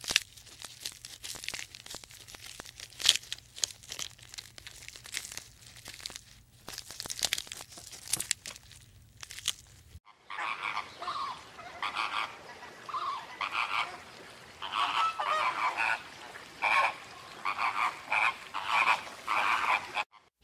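A flock of flamingos honking: short, goose-like calls repeated many times through the second half. Before them, about the first half is a run of irregular sharp clicks and crackles.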